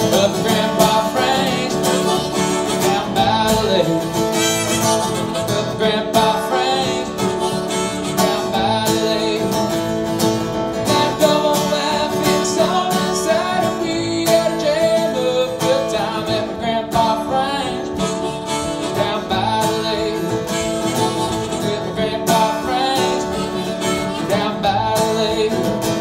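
Plugged-in acoustic-electric guitar strummed steadily, playing chords without a sung lyric.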